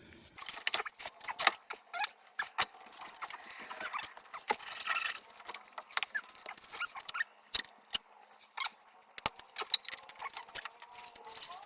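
Scattered light metallic clicks, taps and clinks of bolts and hand tools being handled while the snowmobile's rear suspension skid is bolted back into the tunnel.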